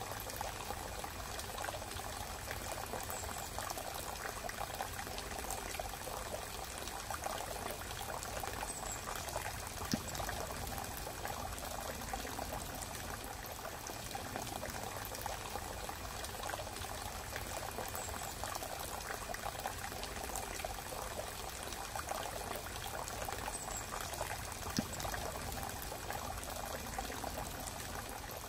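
Steady trickling, running-water sound, even and unbroken, with two brief faint clicks, about ten seconds in and near the end.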